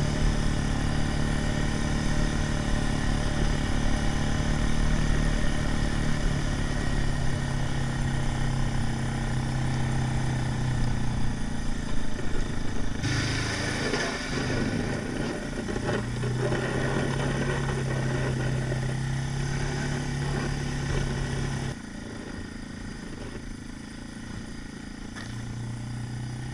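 2004 Suzuki Eiger 400 ATV's single-cylinder engine running steadily as the four-wheeler drives with its snow blade. Around the middle there is a stretch of clatter and rougher noise, and a few seconds from the end the engine note drops in level, then picks up again.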